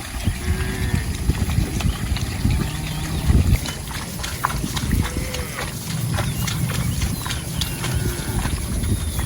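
Cattle feeding close by: a steady run of low rustling and knocking with many short clicks, and a few short arched calls scattered through it.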